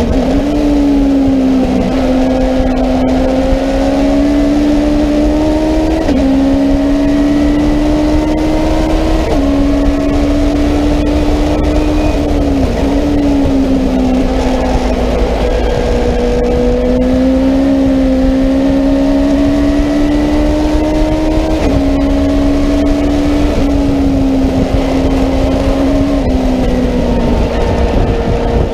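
Legends race car's Yamaha four-cylinder motorcycle engine running hard under racing load, heard from inside the cockpit. Its note holds near steady and jumps or dips sharply several times as the driver changes gear.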